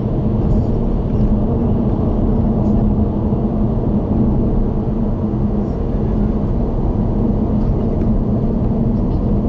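Car cruising on an expressway, heard from inside the cabin: steady tyre and engine drone with a constant low hum.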